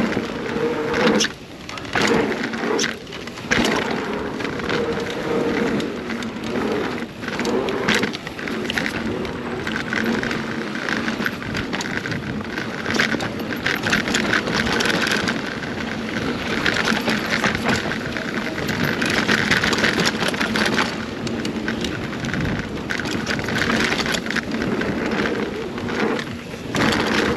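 2021 Scott Spark 970 full-suspension mountain bike riding down a dirt trail: a steady rush of tyre and wind noise, broken by frequent clattering knocks as the bike goes over bumps.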